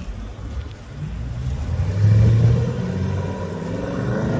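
A car engine running with a low note, getting louder about halfway through and starting to rise in pitch near the end.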